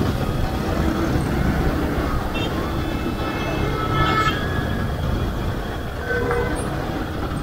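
Steady low rumble of a motorcycle engine and road noise heard from the rider's own bike while riding in city traffic, with a few faint brief higher sounds from the surrounding traffic.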